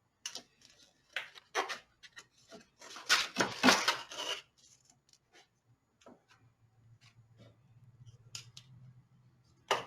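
Hand handling of chassis parts on a workbench: a quick run of short rubbing, scraping strokes in the first half, then a few light clicks and taps.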